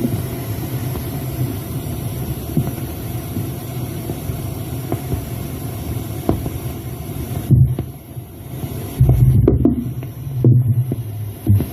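Low, steady throbbing hum picked up at a borehole, with a few louder thumps and bumps in the second half. The recorders take it for machinery digging a tunnel underground.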